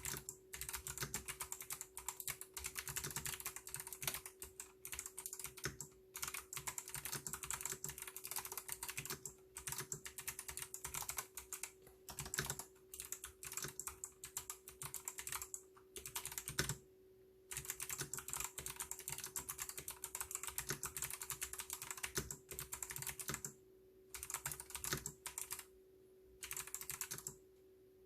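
Mechanical keyboard with Kailh white switches being typed on quickly and continuously, dense keystroke clicks with a few short pauses, the longest about 17 seconds in. A faint steady hum sits underneath.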